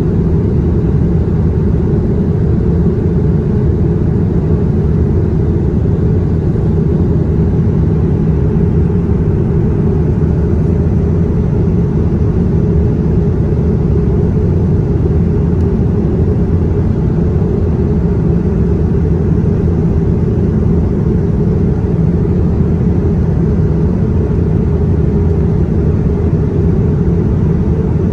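Jet airliner in flight heard from inside the cabin at a window seat over the wing: a steady, low drone of jet engine and airflow noise.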